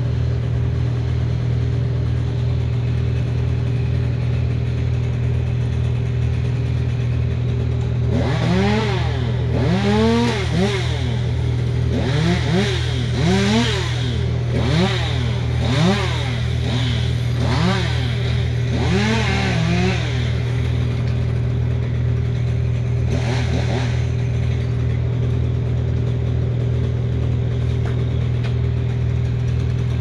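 An engine runs steadily throughout with a constant low hum. Over it, a chainsaw revs up and down in a quick run of throttle bursts, about one a second, for roughly twelve seconds from about eight seconds in. One more short burst follows near the end.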